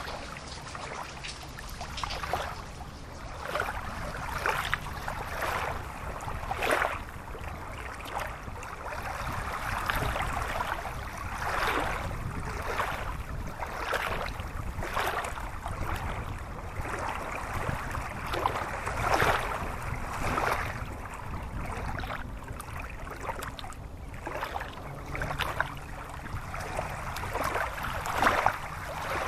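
Shallow rocky stream rushing and gurgling over stones, a steady wash of water with uneven surges.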